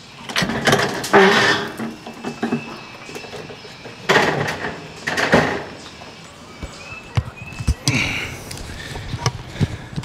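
Wooden rabbit hutch being shut and handled: a run of knocks, scrapes and rustles, loudest about a second in and again around four and five seconds, with a few lighter knocks near the end.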